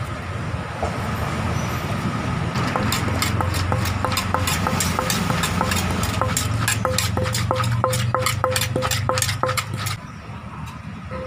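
Som tum being pounded in a mortar with a pestle: sharp, regular knocks, about three a second, each with a short ringing tone, starting about two and a half seconds in and stopping near the end, over a steady low street hum.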